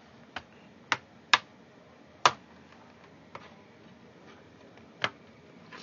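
Sharp plastic clicks and snaps, about six spread over a few seconds with the loudest a little over a second in and just after two seconds in: the plastic clips of a laptop's bottom case releasing as it is pried open.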